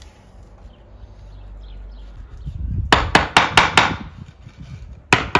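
Masonry tapping: a quick run of about five sharp knocks in a little over a second, starting about halfway through, and another run beginning just before the end, the kind of tapping used to set building plates level in fresh mortar.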